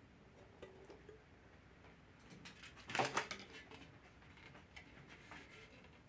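Quiet hand-handling noises in a clear plastic enclosure: a short burst of crisp rustling and light plastic clicks about three seconds in, as dry moss and the plastic container are handled, with a few fainter clicks a couple of seconds later.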